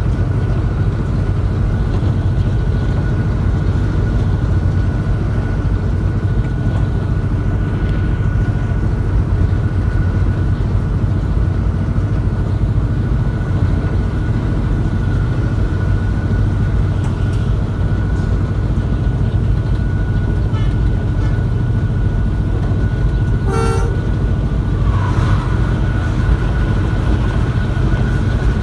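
A moving goods train running along the track with a steady, loud rumble, and a short horn toot about 23 seconds in.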